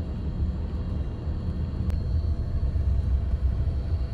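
Steady low rumble of a minibus driving, heard from inside its cabin: engine and road noise.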